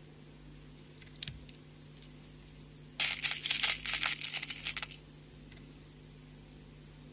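Small hard beads rattling and clicking together for about two seconds, with a single click about a second earlier, over a faint steady hum.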